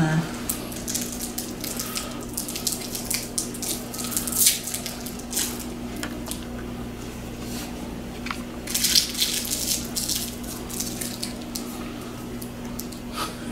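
Small dog licking and smacking at a piece of sour candy held to its mouth: irregular short, wet licks and lip-smacks, a cluster of them about two-thirds of the way in, over a steady low hum.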